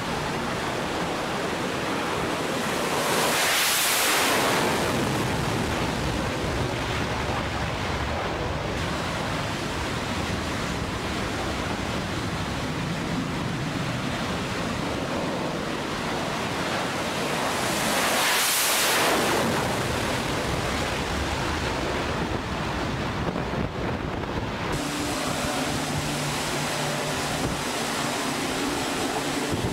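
Steady jet-engine noise on an aircraft carrier flight deck, swelling twice, about four seconds in and again about eighteen seconds in, as F/A-18 jets run up and launch off the catapult. In the last few seconds a steady droning hum from an E-2 Hawkeye's turboprop propellers joins in.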